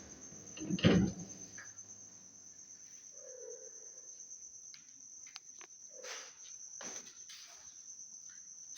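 A steady, high-pitched insect trill runs throughout. A thump comes about a second in, and a few faint knocks follow later.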